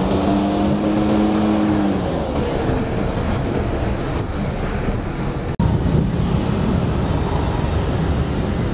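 Street traffic heard from a moving bicycle, with a bus running close alongside. A steady low hum sags in pitch as it fades about two seconds in. The sound cuts out for an instant about five and a half seconds in.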